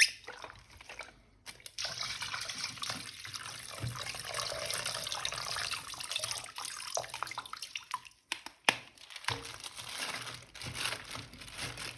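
Water running from a tap and splashing as an action figure is washed. The water stops about eight seconds in, followed by a few clicks and knocks of handling.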